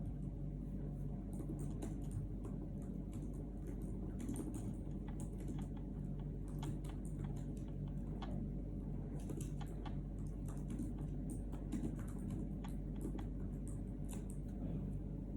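Typing on a keyboard: many irregular light clicks, over a steady low hum.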